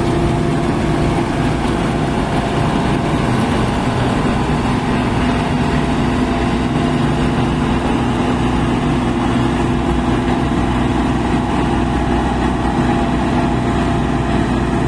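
Bizon Z056 combine harvester running steadily while cutting winter barley: its diesel engine and threshing machinery make a constant drone at an even level, with a steady whine that settles lower about two seconds in.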